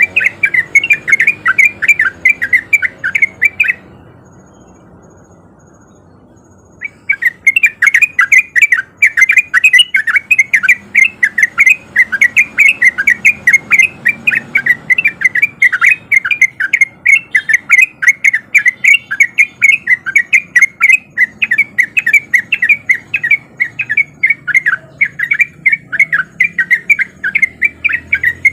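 Yellow-vented bulbul (trucuk) singing a rapid, unbroken run of short chattering notes, several a second. The song breaks off for about three seconds, about four seconds in, then resumes.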